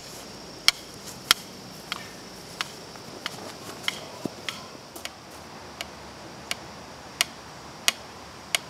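A series of sharp, short clicks, about three every two seconds, a few coming closer together around the middle, over a steady hiss.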